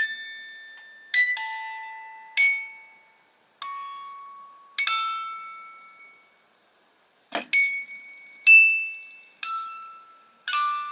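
Wooden mechanical music box playing a slow melody on its steel comb: single plucked notes about a second apart, each ringing and fading before the next.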